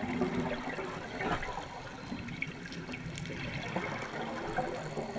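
Scuba regulator exhaust bubbles gurgling underwater, over a steady hiss peppered with many small crackling clicks.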